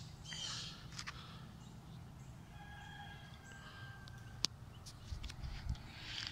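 Birds calling in the early morning: a couple of harsh calls near the start, then a thinner drawn-out call in the middle. A single sharp click comes a little past the midpoint, and low thumps and rustling from the handheld phone being moved follow near the end.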